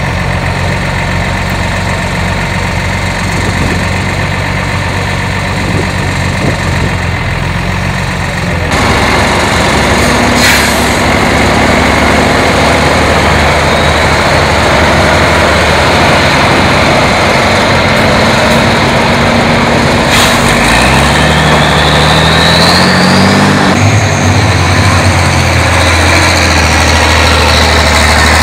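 Avia trial truck's engine running at low revs as it crawls over rough ground, the revs climbing for a couple of seconds about three quarters of the way through, then settling into a steady run.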